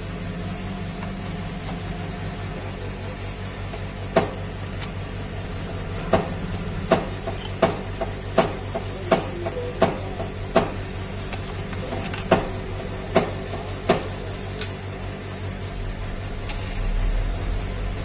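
A steady electrical hum with a series of about a dozen sharp clicks, roughly one every three-quarters of a second, as a smartphone circuit board is handled and taken out of its plastic housing. The clicks start about four seconds in and stop about fourteen seconds in.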